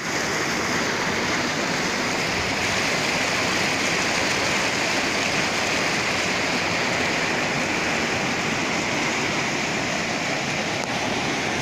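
A torrent of muddy floodwater rushing steadily along a street, a continuous even wash of water noise.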